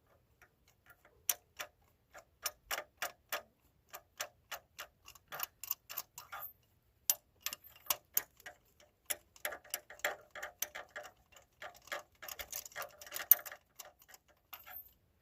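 Socket ratchet clicking in short, uneven runs of sharp ticks as it is worked on the engine's ignition parts, the clicks coming closer together in the second half.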